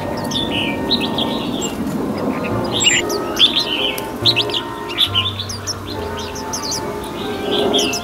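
A flock of red-whiskered bulbuls chirping and calling, with many short, high chirps in quick succession, busiest in the middle. Steady background music plays under the calls.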